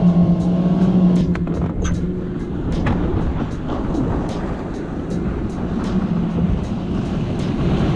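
Motorboat running at speed on the water: a steady engine drone with a rushing wash of wind and water over it. The drone eases off in the middle and comes back near the end.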